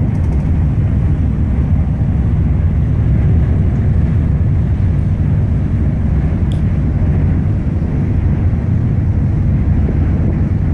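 Steady low rumble on the open deck of a ship under way: wind buffeting the microphone together with the ship's running noise.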